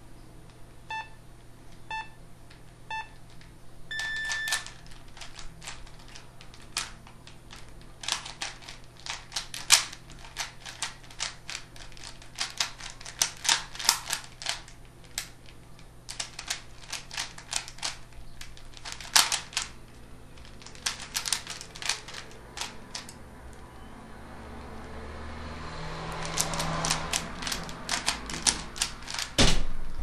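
Three short electronic beeps a second apart and then a longer beep, like a countdown to a start. Then a Rubik's cube's plastic layers click and clack in quick irregular runs of turns as it is speed-solved. Near the end there is a rising rustle and a sharp knock.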